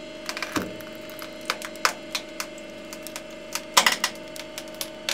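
A 300-ton hydraulic press runs with a steady hum while it slowly loads a duct-taped wooden joint, which gives off irregular sharp cracks and snaps as it takes the load. The loudest cracks come a little under four seconds in.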